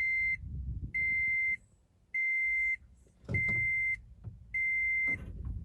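Toyota Prius in-car warning chime beeping repeatedly as the car is being started: a steady high tone about every 1.2 seconds, each beep just over half a second long. A low thump comes with the fourth beep and another near the end.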